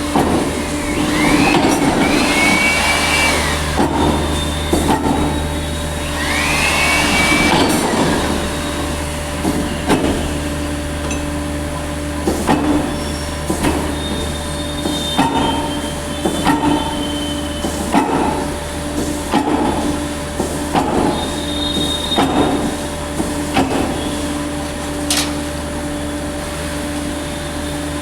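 Heavy-duty forging screw press running with a steady machine hum. Two rising squeals come about a second and six seconds in, then a string of sharp knocks roughly once a second.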